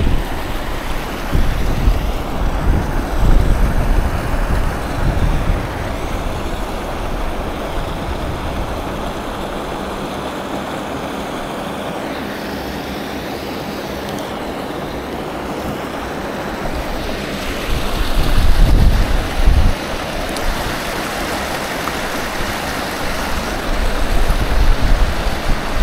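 Steady rush of flowing river water, with wind buffeting the microphone in gusts, strongest about three-quarters of the way through and again near the end.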